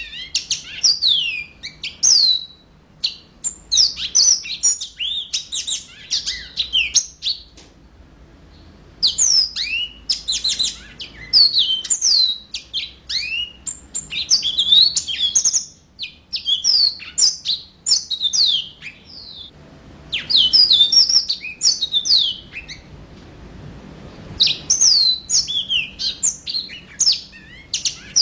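Yellow-fronted canary (Mozambique canary) in full song: rapid runs of high chirping notes that sweep up and down, in phrases of a few seconds broken by brief pauses.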